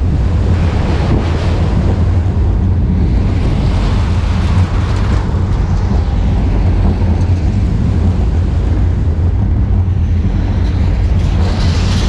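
Steel roller coaster train running at speed through its inversions: heavy wind buffeting the microphone over a steady low rumble of the wheels on the steel track. This is a Vekoma Boomerang coaster.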